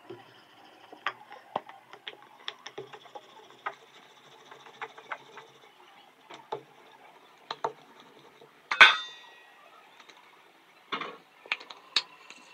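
Wooden rolling pin rolling roti dough on a stone rolling board, with scattered light knocks and clicks as the pin and dough are handled. Nearly nine seconds in, one loud metallic clank rings on briefly, like a kitchen utensil knocked.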